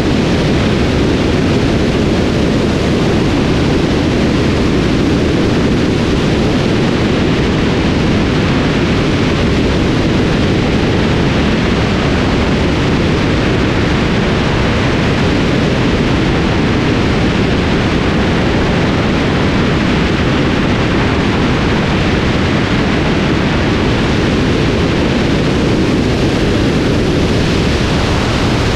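Steady, loud rush of airflow and engine noise on a camera mounted on the outside of a light propeller aircraft in flight, mostly a low, even roar with no distinct engine tone.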